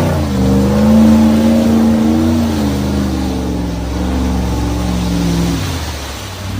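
UAZ-469's four-cylinder petrol engine running at steady revs, its pitch stepping down slightly a couple of times and easing off near the end.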